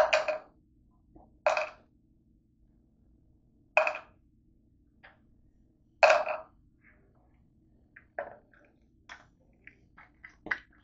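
A person eating close to the microphone: short, noisy bursts of mouth and food sounds about every two seconds, with small clicks between them.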